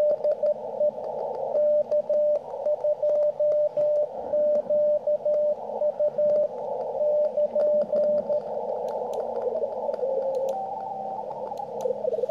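Morse code (CW) on the 40-metre amateur band received by a NooElec software-defined radio: a steady tone near 600 Hz keyed on and off in dots and dashes over band hiss. About eight seconds in the keying stops and a few short tones at other pitches come and go as the receiver is retuned.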